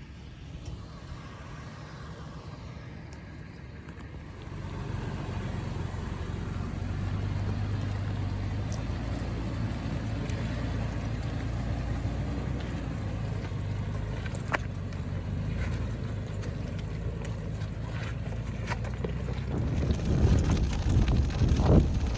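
2018 Toyota 4Runner's engine running at low trail speed, a steady low drone that grows louder about four seconds in, with a few light ticks. Wind buffets the microphone near the end.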